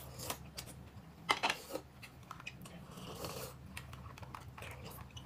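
Eating at a table: chewing with scattered light clicks of spoons and chopsticks against cups and dishes.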